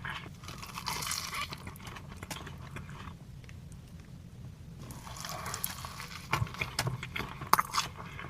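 Wet eating sounds with scattered small clicks, pausing for a couple of seconds about three seconds in.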